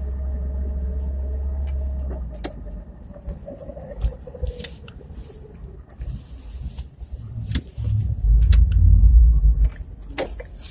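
2017 Chevrolet Niva's drivetrain on the move, muffled: a steady low hum that drops away about two seconds in, then scattered dull knocks and clicks and a louder low rumble near the end. Among them is a dull transmission knock when the clutch pedal is pressed down. The knocks persist after the intermediate shaft and left front driveshaft were replaced.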